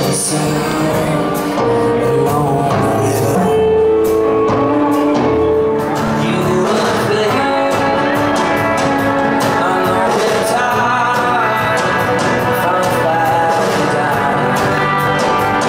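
Live band playing a song, heard from the crowd: drums, guitars and upright double bass, with a male voice singing.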